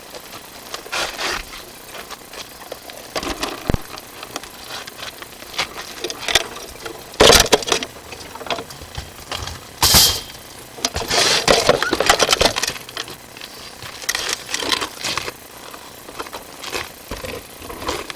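Irregular scraping, rattling and knocking as a sewer inspection camera is pushed along a drain pipe, with two sharp knocks about seven and ten seconds in.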